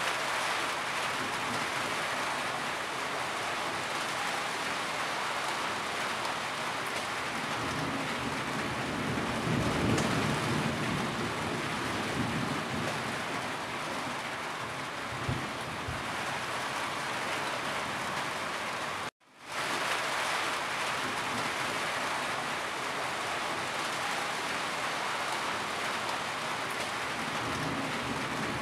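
Heavy rain falling steadily and pouring off a roof edge, an even hiss with a low rumble swelling about a third of the way in. The sound cuts out for a split second about two-thirds through, then comes straight back.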